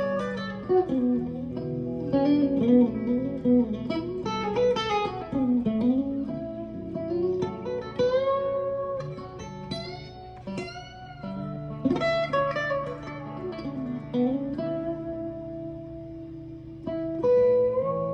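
Amplified 1999 Fender '62 American Vintage Reissue Stratocaster with Ancho Poblano custom shop pickups, played clean in melodic single-note lead lines with string bends and vibrato and ringing sustained notes, and a harder-picked phrase shortly before the end.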